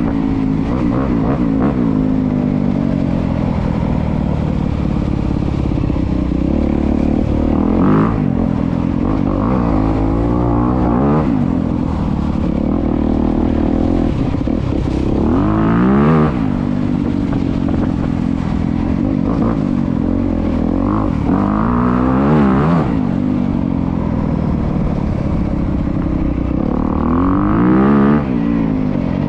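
A 2025 Honda CRF250R's single-cylinder four-stroke engine on its stock exhaust, ridden hard, its pitch rising and falling again and again as the throttle is opened and closed through the gears.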